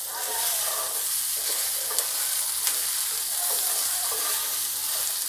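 Whole karamda berries sizzling in hot oil in a nonstick frying pan while a wooden spatula stirs and scrapes them around, frying them until slightly soft. A steady sizzle runs under the stirring, with a couple of sharp ticks near the middle.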